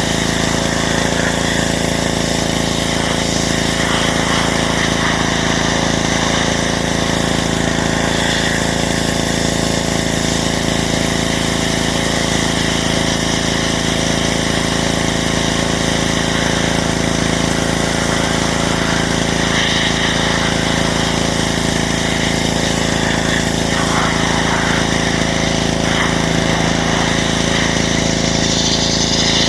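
Pressure washer running steadily: a small engine hums at a constant speed under the hiss of the water spray.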